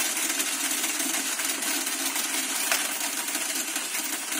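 Alfa 750 coin counting machine running, coins rattling through it in a quick stream of clicks over the steady whir of its motor.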